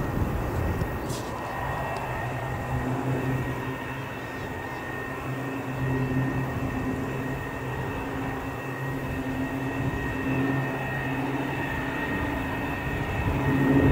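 Jet engines of two Irkut MC-21 airliners flying past in formation: a steady rumble with a thin steady whine over it, swelling slightly near the end. A brief click sounds about a second in.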